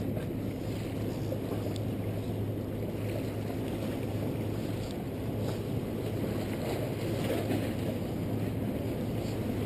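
Steady wind buffeting the microphone, with small waves lapping against jetty rocks.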